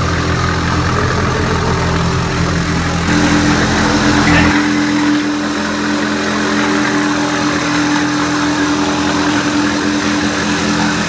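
ROLL-STRIPPER RO-2 self-propelled floor stripper running, its electric motor humming steadily with a scraping noise as its blade peels cork granulate underlay off the floor. The low part of the hum drops away about four and a half seconds in, leaving a steadier mid-pitched tone.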